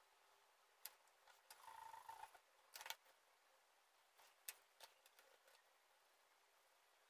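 Faint clicks and taps of drawing tools (pencil, brush, eraser) being handled and set down on the paper and stone worktop, with a short scratchy rub on the paper about two seconds in.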